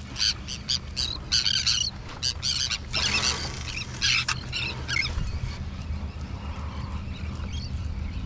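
A flock of small seabirds calling in short, harsh squawks in quick succession, many in the first five seconds and then thinning out, over a low steady hum.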